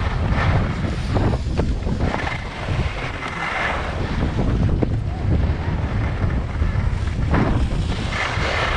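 Wind buffeting the microphone of a camera carried by a moving skier, with the hiss and scrape of skis on packed snow swelling up as turns are carved, most plainly about two to three seconds in and again near the end.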